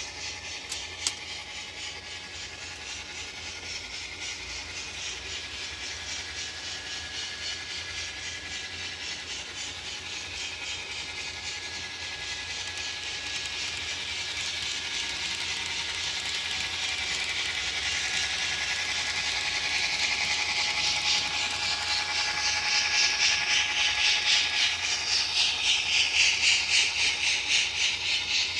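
Model locomotive with a DCC sound decoder running on the track, playing a rhythmic hissing pulse over a steady whine. It grows louder, and the beats are about twice a second near the end.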